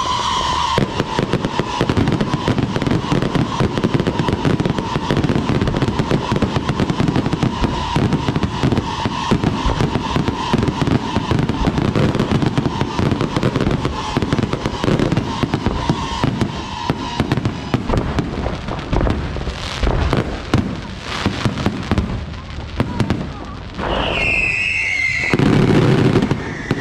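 Aerial fireworks show: a dense, continuous crackling and popping of bursting shells, thinning out in the second half into separate louder bangs.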